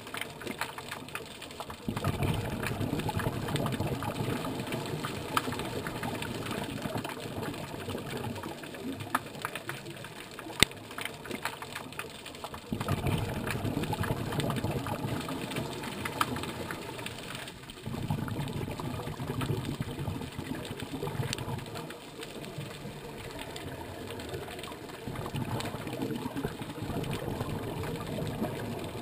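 Underwater, a scuba diver's exhaled bubbles rumble out of the regulator in four long spells, breath after breath. A steady crackle of scattered clicks runs under them.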